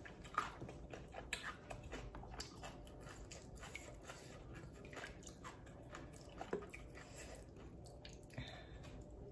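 Close-up chewing and biting of mouthfuls of duck noodle soup with fresh greens: soft wet smacks and short clicks scattered throughout, the sharpest about half a second in.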